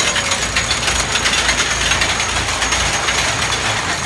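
Small family roller coaster train running on its steel track while climbing, with rapid, steady clicking and rattling from the cars and track.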